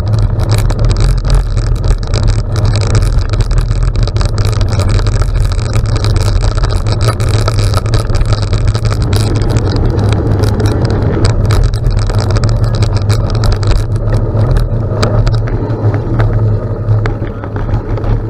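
Wind rumbling on the microphone of a riding cyclist's camera, with tyres crackling over gravel. The noise eases off near the end.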